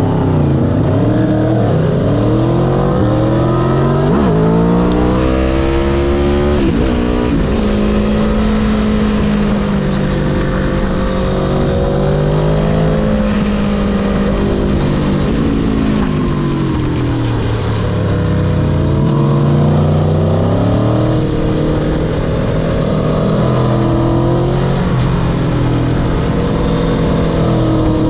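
Motorcycle engine being ridden hard, its pitch climbing under acceleration and dropping sharply at each gear change, then rising again through a series of pulls and eases.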